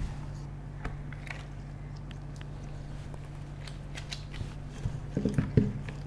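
Soft, sticky handling of freshly kneaded wheat-flour dough as gloved hands pull it out of a stainless-steel mixing bowl and drop it into a ceramic bowl, with scattered light clicks and a few soft knocks near the end. A steady low hum underneath.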